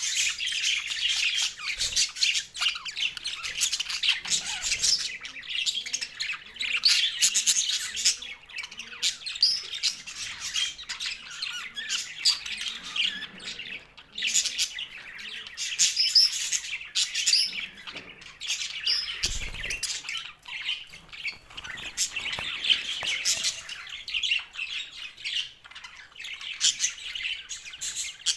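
Budgerigars chattering and squawking, a dense stream of rapid warbles and sharp clicks.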